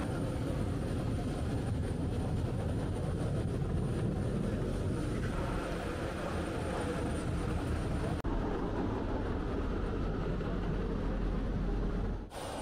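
Steady rumble of aircraft noise at a military transport plane's open cargo hold. It breaks off briefly about eight seconds in and again near the end.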